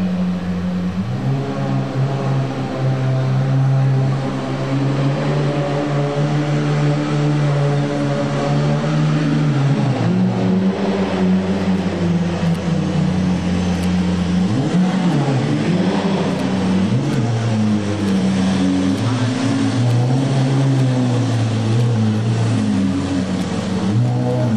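Gintani-tuned Lamborghini Aventador SVJ's V12 running at low speed with a deep, steady drone. It revs up and down a few times quickly a little past halfway through.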